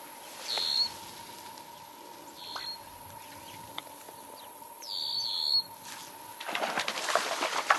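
A bird chirps in short, high notes four times, the last a quick double note. Near the end comes irregular splashing in the stream as a trout hits the cricket fly on the surface.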